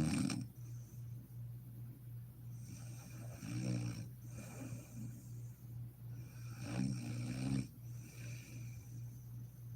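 A woman snoring in deep sleep: three rough snores, roughly every three and a half seconds, with softer breathing between them. A steady low hum runs underneath.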